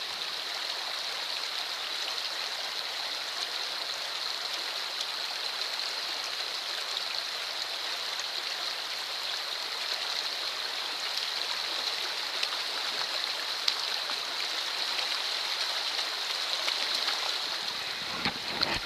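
Shallow rocky trout stream running, a steady rushing hiss of water, with a couple of brief sharp sounds about twelve and fourteen seconds in.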